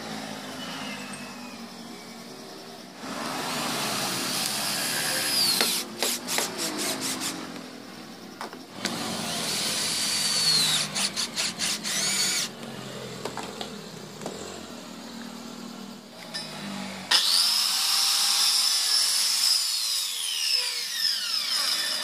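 Cordless drill-driver driving screws into wood, running in three spells of a few seconds each. The first two spells end in a quick rattle of clicks as the clutch slips once the screw is seated.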